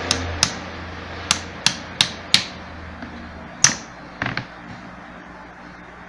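Small hammer tapping a knife blade wedged into the seam of a pedestal fan's motor housing, to split the housing open: about nine sharp, separate taps at an uneven pace, the loudest a little over three and a half seconds in, ending with a quick double tap.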